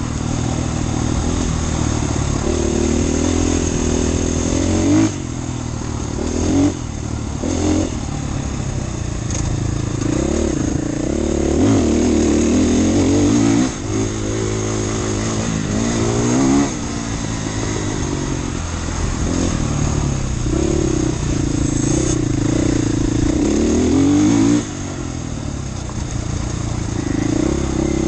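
Husqvarna FE450's single-cylinder four-stroke engine being ridden hard, its pitch climbing and falling with the throttle, with several sudden drops in loudness where the throttle is shut off.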